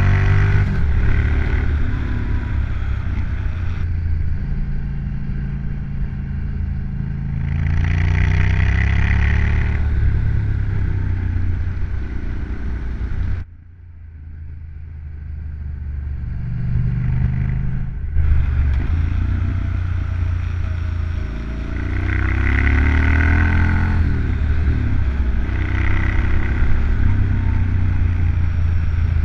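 Motorcycle engine running at road speed, its revs rising and falling through the bends, heard from close to the wheel with road noise. About thirteen seconds in the sound drops away suddenly, then builds back up over a few seconds.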